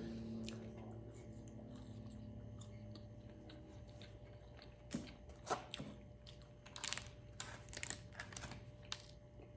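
Faint scattered crinkles and taps of a burger and fries in paper wrappers and containers being handled, over a low steady hum. A held musical note fades out in the first few seconds.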